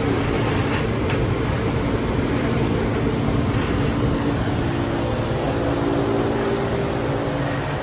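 Steady mechanical drone with a few low humming tones, holding the same level without a break.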